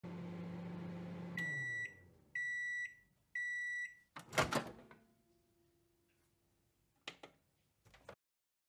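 Microwave oven running with a steady hum, which stops as its timer runs out. Three even, high beeps follow, about a second apart, then a short rush of noise as the door opens and two faint clicks near the end.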